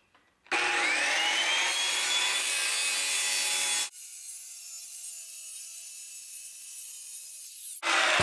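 Circular saw starting up with a rising whine and cutting forward through Formica laminate on birch plywood. About four seconds in, the sound abruptly turns thin and quieter as the footage is sped up, and the full saw noise returns near the end.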